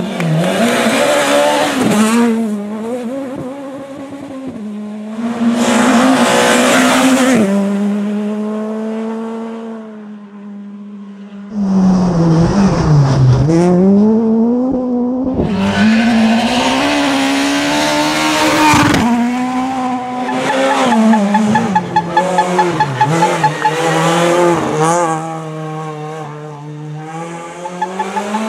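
Skoda Fabia S2000 rally cars' naturally aspirated 2.0-litre four-cylinder engines revving hard, the pitch climbing and dropping again and again through gear changes and lifts, with tyres squealing. The sound changes abruptly about a third of the way in, and a run of rapid crackles comes about three-quarters of the way through.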